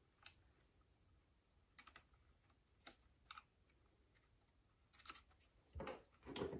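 Faint, scattered small metallic clicks and taps as a screw and nut are fitted by hand and screwdriver on the safety switch of a Hi-Blow diaphragm air pump, with a louder cluster of handling knocks near the end.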